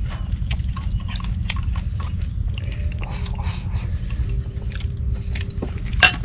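People chewing and biting food close to the microphone, with scattered small clicks over a steady low rumble. A sharp click about six seconds in is the loudest sound.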